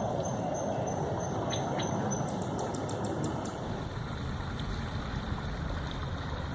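Bicycles pushing through floodwater on a road, with steady water churning and wind rumble on the microphone. A run of quick, evenly spaced high ticks comes in the first couple of seconds, then a few sharp clicks.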